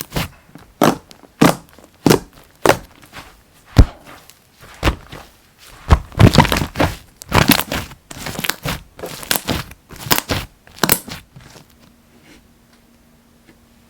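Slime being squished, pressed and poked by hand, making irregular sharp sticky clicks and pops with short crackly runs. The handling slows and goes quiet near the end.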